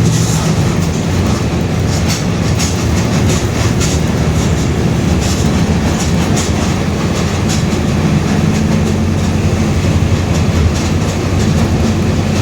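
Mercedes-Benz OF-1721 BlueTec 5 city bus heard from inside while driving: the diesel engine and drivetrain run steadily, with the differential growling, and the body rattles often.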